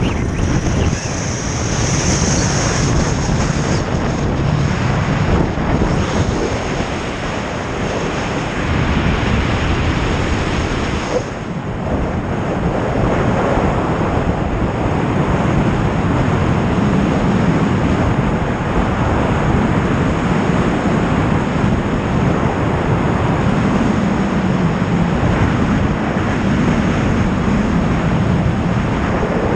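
Wind rushing over a GoPro's microphone as its rider speeds down a long zip line, a loud steady rush of air that dips briefly about eleven seconds in.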